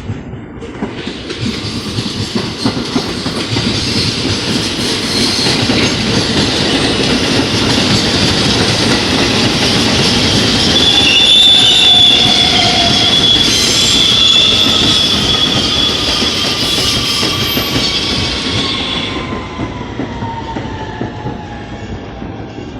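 R160 subway train pulling into a station: wheels rumbling and clattering on the rails, building to a peak about halfway, with a high wheel squeal in the middle. Near the end the noise eases and a falling whine is heard as the train brakes to a stop.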